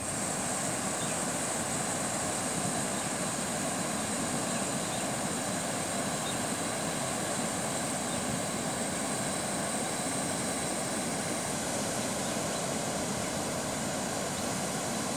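Water rushing steadily over a low river weir and through rocky rapids, a continuous even noise.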